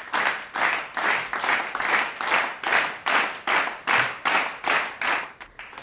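Hands clapping in a steady rhythm, about three claps a second.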